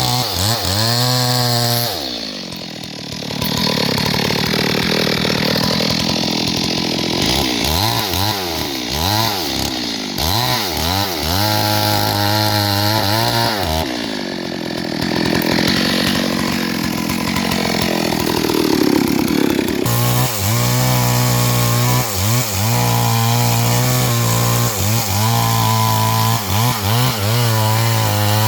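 Chainsaw felling a big tree. It alternates between long cuts under load and spells of high revving, where the engine pitch dips and climbs again as the throttle is blipped.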